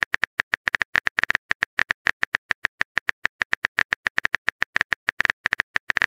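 Phone-keyboard typing sound effect of a texting-story app: a rapid, uneven patter of short key clicks, about ten a second, as a message is typed out.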